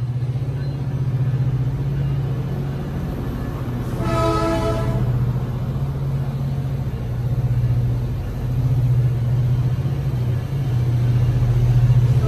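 Metrolink diesel locomotive pulling its bilevel passenger coaches past, its engine running with a steady low throb. About four seconds in comes a short blast of its multi-note air horn.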